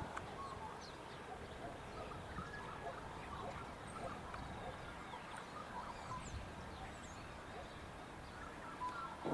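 Several small birds chirping and twittering in short, scattered calls, over faint low background noise.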